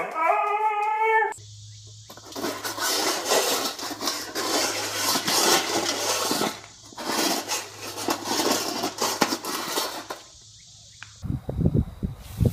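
A spaniel howls for about a second. Then comes a long run of harsh, noisy sound from a husky at its steel food bowl of kibble, broken by two short pauses. Near the end, wind buffets the microphone.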